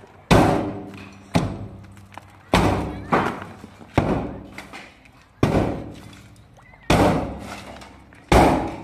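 A series of heavy blows, about seven in all, one every second to second and a half. Each lands sharply and rings out for about a second.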